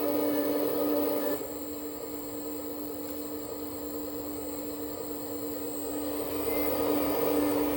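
Electric hydraulic pump of an RC 1/14 Kabolite 970 excavator running with a steady hum. It is louder while the bucket and arm move, drops suddenly about a second and a half in as the load comes off, and builds back up near the end.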